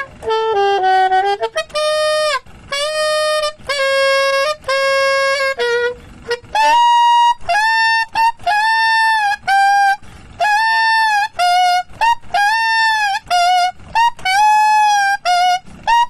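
Saxophone fitted with a J&B custom Cheetah mouthpiece, played unaccompanied: a melody of short phrases and separate notes with a bright, overtone-rich tone, some notes bending in pitch.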